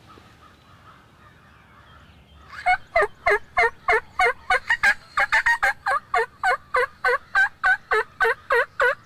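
Hen turkey yelping made by mouth, most likely on a diaphragm call: a long, loud run of about twenty yelps at roughly three a second, each note breaking downward in pitch. It starts about two and a half seconds in.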